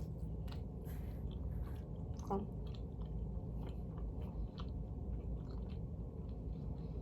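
Close-up chewing of pizza: irregular small wet mouth clicks and crunches as a bite is worked, over a steady low hum.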